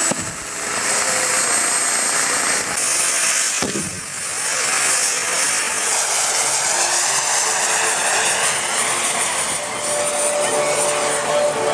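Radio-controlled scale Bell UH-1 Huey model helicopter running with a steady high whine as it lifts off and flies low over the field.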